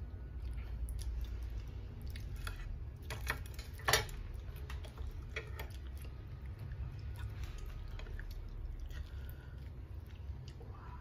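Mouth sounds of eating fried fish and rice: chewing and lip smacking close to the microphone, with scattered wet clicks and one sharper click about four seconds in, over a steady low hum.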